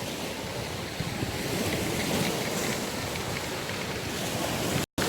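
Sea waves washing in with wind rumbling on the microphone, a steady wash of noise that drops out completely for a moment near the end.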